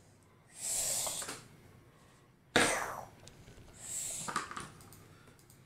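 Three short breathy bursts from a person: a hiss of breath about half a second in, a sharp cough-like huff about two and a half seconds in, and another breathy puff near four seconds.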